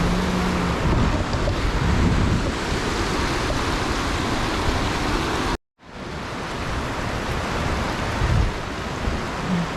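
Steady rushing noise with wind gusting on the microphone, giving an uneven low rumble. The sound cuts out for a moment about halfway through, then resumes.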